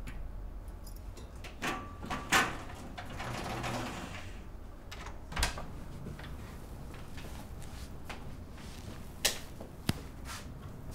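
Metal security gate and front door being unlocked and opened: sharp latch clicks and a metallic rattle a couple of seconds in, one more click midway, then two more sharp clicks near the end.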